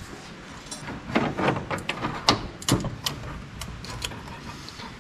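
Irregular sharp clicks and light metallic knocks of hand work with tools and parts on an old truck, one after another at uneven spacing and loudest through the middle.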